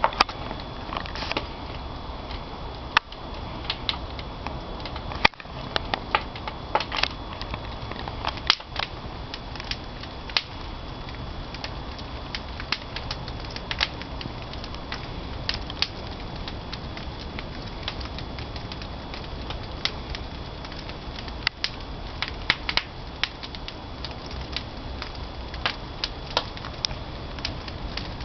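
Firewood burning in a traditional wood-fired kiln, crackling with sharp, irregular pops over a steady rushing noise.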